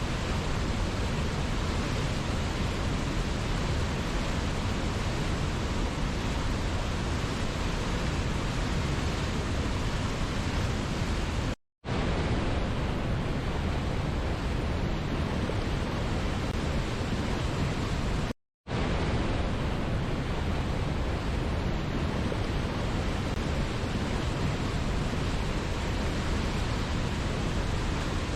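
Steady, even rush of a waterfall's falling water. It cuts out to silence twice for a split second, about 12 and 18 seconds in.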